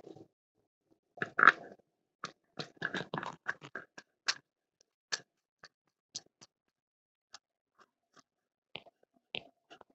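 Black Rain Ordnance sound suppressor being picked up and twisted onto a rifle's muzzle: a run of small, irregular metal clicks and scrapes, busiest in the first few seconds, then thinning out to sparse ticks.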